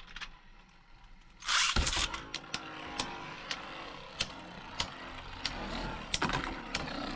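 Two Beyblade Burst spinning tops in a plastic stadium: a loud rush about a second and a half in as the second top is launched, then a steady whir broken by sharp clacks every half second or so as the tops strike each other, and a louder grinding clash near the end.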